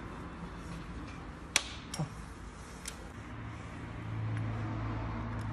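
Sharp metallic clinks of tools and parts against the engine's timing-chain area as the tensioner is fitted: one loud clink about a second and a half in, two lighter ones shortly after. A steady low hum starts about halfway through.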